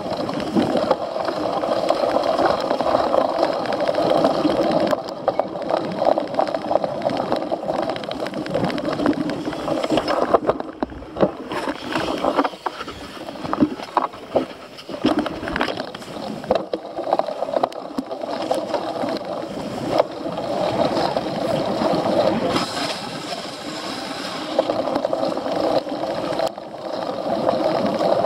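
Cyclocross bike being raced off-road, heard from its rider's onboard camera: a steady rushing noise of tyres and drivetrain, broken around the middle by a stretch of clicks and knocks.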